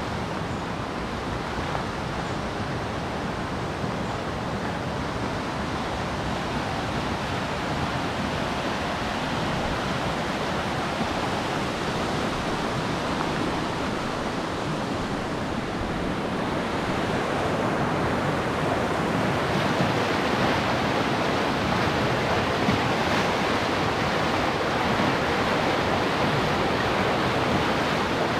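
River rapid rushing: a steady noise of white water that grows louder about two-thirds of the way through and stays loud.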